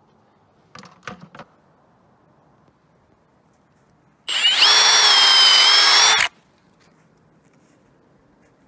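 Power drill with a 19/64-inch high-speed steel bit boring a tap hole into a maple trunk. It runs at a steady whining pitch for about two seconds and then stops suddenly. A few light knocks come about a second in.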